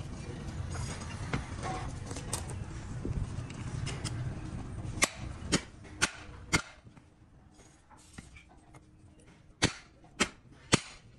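A hammer striking a truck drum-brake shoe while a new brake lining is fixed to it: four sharp blows about half a second apart, a pause, then three more. Before the blows there are a few seconds of rough scraping and handling noise as the shoe is moved.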